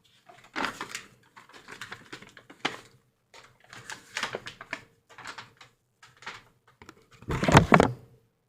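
Small items from a slime kit being handled: a string of light, irregular clicks and rustles, then a louder bump near the end.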